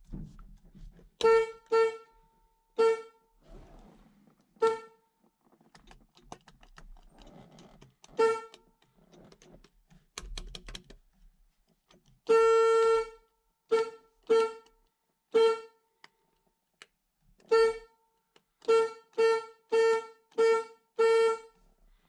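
The 1976 Chevrolet Camaro's car horn sounding in short honks as the newly installed steering-wheel horn button is pressed to test it. There are about fifteen brief blasts on one pitch, with one longer honk a little past the middle, and faint clicks of the button between them.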